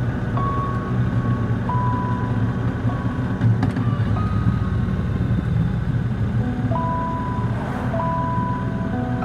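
Triumph Speedmaster's 1200 cc parallel-twin engine running steadily on the move. Background music plays over it, with held notes that step in pitch every second or two.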